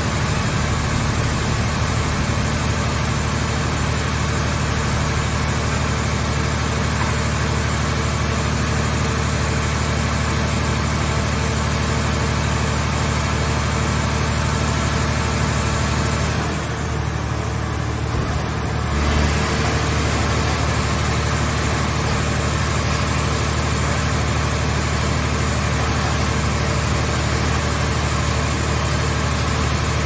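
Hydraulic scrap car baler and grapple loader running with a steady low machine hum. A couple of seconds past the middle the hiss thins out briefly, then comes back with a short low surge.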